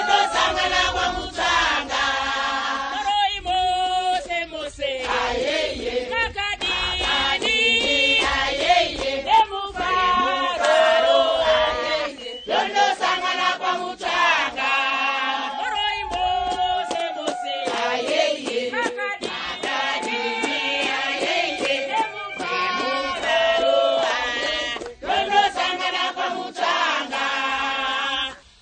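A group of women singing together in chorus.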